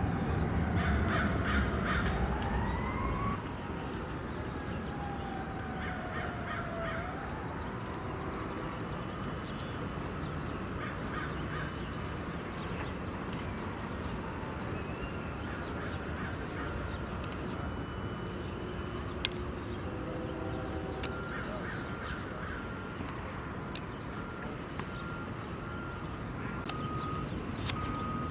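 Open-air city ambience: a distant jet airliner taking off, a low rumble that fades out about three seconds in, while a siren wails, falling and rising, through the first several seconds. Scattered short calls sound throughout, and from about two-thirds of the way in a vehicle's reversing alarm beeps steadily.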